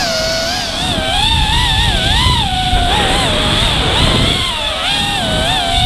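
Brushless motors and three-blade props of a 5-inch FPV racing quadcopter (Cobra 2300kv motors, HQ 5040 tri-blade props) whining, the pitch swinging up and down again and again with the throttle, heard from the GoPro on the drone with wind rumble underneath.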